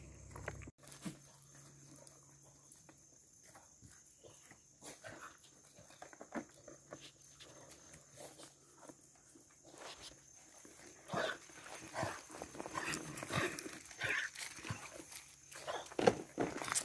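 Goats feeding from plastic tubs of carrots and alfalfa: faint, irregular munching and snuffling with short snorts and scuffs on gravel. The sounds grow denser and louder in the last several seconds.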